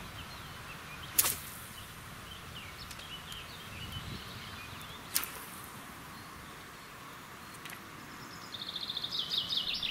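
Two sharp swishes of a spinning rod whipped through the air, about four seconds apart, over faint birdsong. A fast, high rhythmic ticking starts near the end.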